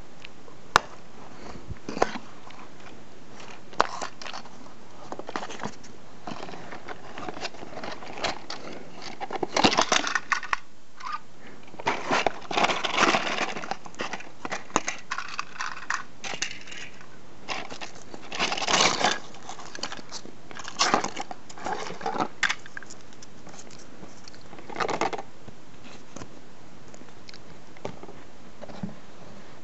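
Cardboard box and plastic packaging being handled as a toy train is taken out: scattered clicks and knocks, with bursts of rustling and scraping, the loudest about a third of the way in and again near two-thirds.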